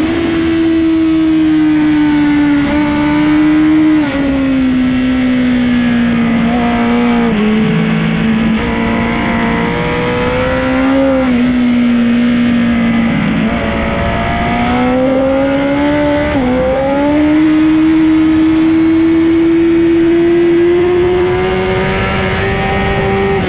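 Honda CBR1000RR-R Fireblade inline-four engine at racing speed, heard from onboard the bike. The engine note rises and falls as it accelerates and slows, with several sudden drops in pitch at gear changes.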